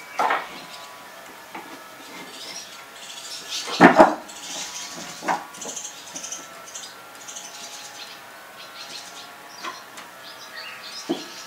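Swallows twittering throughout in quick high chirps. Over them come a few sharp knocks and clatters from scrap wood being handled, the loudest a double knock about four seconds in.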